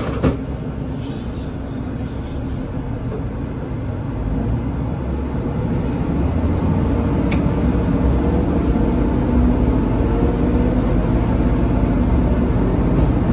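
Diesel railcar pulling away from a station, heard from inside the car: the engine and wheel rumble grow louder and the engine note creeps upward as the train gathers speed. There is a sharp click at the very start and a brief tick about seven seconds in.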